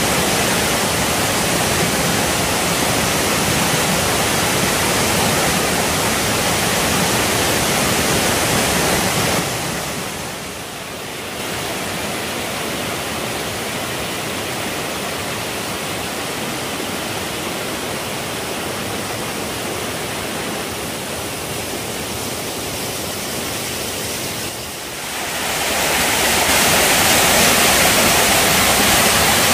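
Rushing water of a rocky jungle stream and waterfall, a steady noise that dips briefly about ten seconds in and again near twenty-five seconds, then grows louder near the end.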